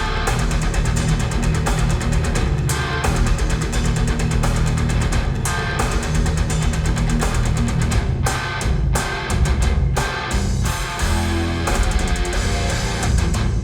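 Instrumental rock music with guitar and drum kit, played back through Elfton Elevator loudspeakers in a room and picked up by microphones.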